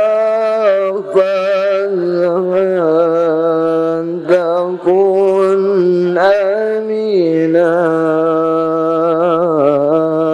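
A man chanting Arabic devotional verse in long, drawn-out notes that waver and slide between pitches, with two short breaks for breath.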